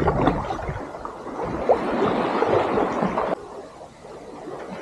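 Water splashing and lapping around a kayak being paddled through shallow water, with some wind on the microphone. The louder wash cuts off abruptly a little after three seconds in, leaving fainter water sound.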